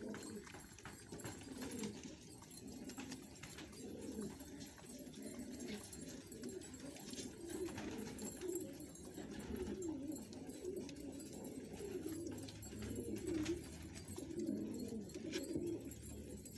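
A flock of racing homer pigeons cooing, many low coos overlapping with no break.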